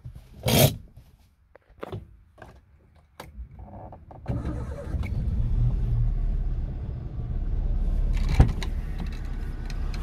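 A sharp click and a few small clicks at the ignition, then a small car engine cranks and catches about four seconds in and settles into a steady idle, with a short knock near the end. The exhaust carries a bolt-on turbo whistle, but the idle sounds normal, with no clear whistle over the engine's belt noise.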